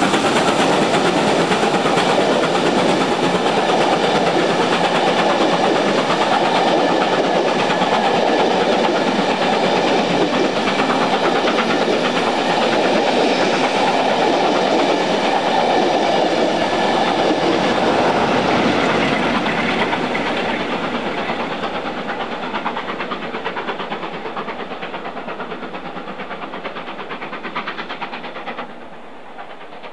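A train of British Rail Mk1 coaches rolling past close by, wheels clattering over the rail joints. The noise fades from about two-thirds of the way through as the train draws away, then drops suddenly near the end.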